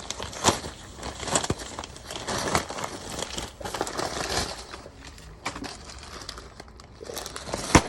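Packaging of a Lego parts order crinkling and rustling as it is torn open and handled, with scattered small clicks and one sharp knock near the end.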